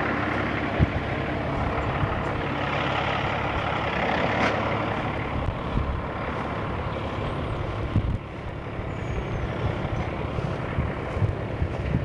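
A vehicle engine runs steadily in the background, with a couple of low knocks about a second in and again near the eight-second mark.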